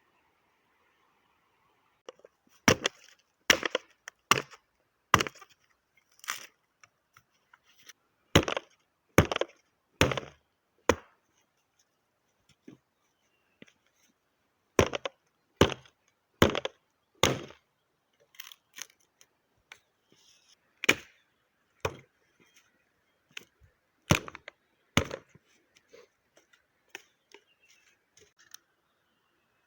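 Wood being chopped: sharp strikes in runs of three to five blows just under a second apart, with short pauses between runs.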